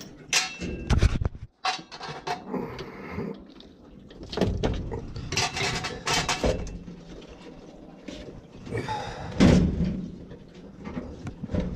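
Tools and metal parts clunking, knocking and rattling as a boiler is worked on by hand: scattered irregular knocks, the loudest about nine and a half seconds in.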